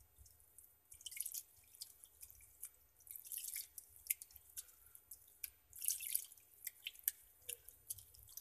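Wet chhena curds being rinsed with water and worked by hand in a muslin cloth: irregular splashes and drips of water, loudest in a few clusters about a second in, around the middle, and near six seconds.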